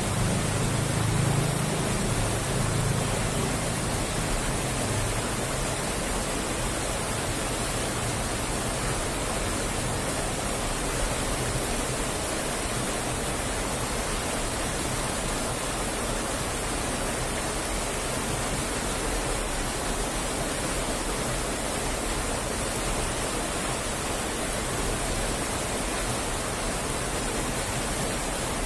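Steady rush of turbulent water pouring through a concrete drainage channel into a box culvert. A low rumble sits under it in the first few seconds, then fades out.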